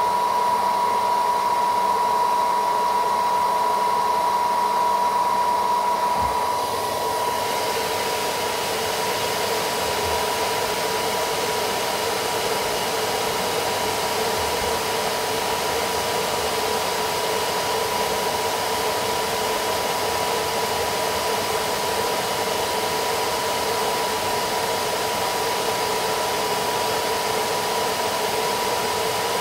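Small handheld hair dryer running steadily: a rush of air with a steady whine, blowing hot air onto a smartphone's back panel to soften its adhesive. About six seconds in the air sound turns brighter and hissier as the dryer is aimed at the phone's edge.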